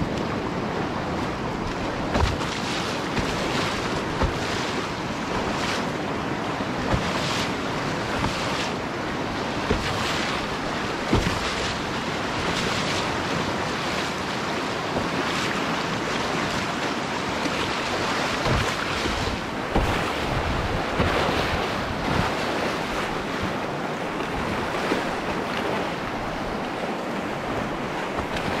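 Canoe running a whitewater rapid: a steady rush of churning river water with wind buffeting the microphone. Short, sharp splashes and slaps come every second or two as the boat crashes through cresting waves.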